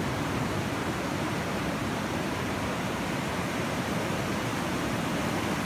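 Ocean surf washing onto a sandy beach: a steady rushing noise with no distinct wave crashes.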